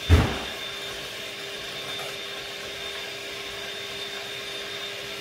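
Electric hand mixer running steadily, its beaters whipping thickened cream in a bowl, with a steady motor whine. A single loud thump comes right at the start.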